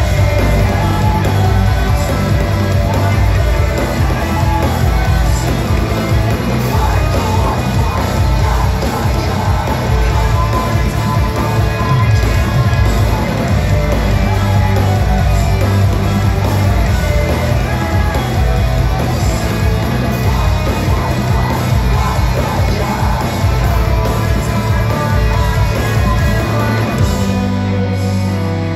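Post-hardcore band playing live at full volume: electric guitars, bass and drums, with a singer singing and shouting over them. About a second before the end the full band drops out, leaving held guitar notes ringing.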